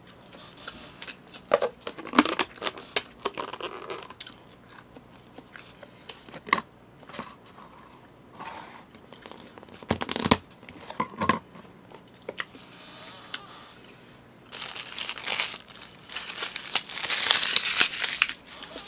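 Disposable plastic food packaging being handled: scattered clicks and rustles of clear lids and takeaway trays, then a few seconds of dense crinkling of plastic wrapping near the end.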